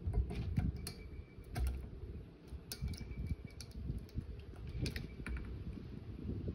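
Irregular light clicks and knocks of a glass bowl against the rim of a metal cake tin as custard-soaked bread is poured in, over soft wet thuds of the bread landing, with a spatula scraping the bowl near the end.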